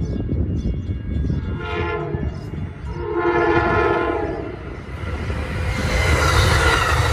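Amtrak passenger train's air horn sounding a short blast and then a longer blast as it approaches a grade crossing. The horn is followed by the rising rush and rumble of the cab car and coaches passing close by on the rails.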